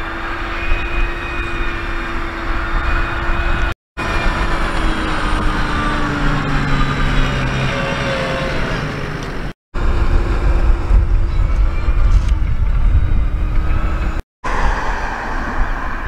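New Holland T6.160 tractor's diesel engine running steadily under load while pulling a plough through the soil. The sound cuts out briefly three times.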